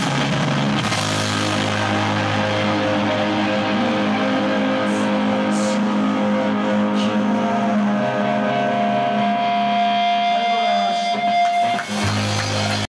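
Live band music led by a Gibson electric guitar, its chords ringing out with long held notes. A steady high tone holds for several seconds in the second half.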